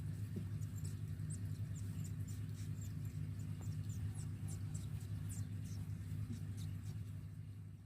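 Newborn Mongolian gerbil pups squeaking: many brief, very high-pitched chirps scattered throughout, over a steady low hum.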